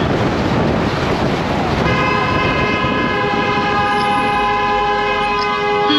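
Vehicle horns sounding in a stopped traffic queue: several horns at different pitches held long and overlapping, starting about two seconds in and joined by more a second later, over wind rushing on the microphone.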